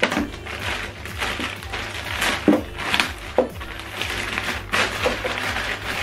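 Clear plastic packaging bag crinkling and rustling as it is handled and pulled open, with irregular sharp crackles throughout.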